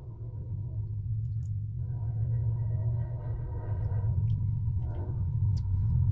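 A steady low rumbling hum with a faint thin high tone held over it.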